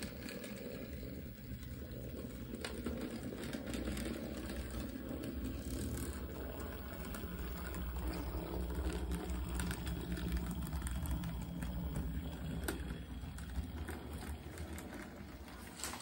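Model steam locomotive running along the track: a steady low rumble of its motor and wheels on the rails, with a few light clicks.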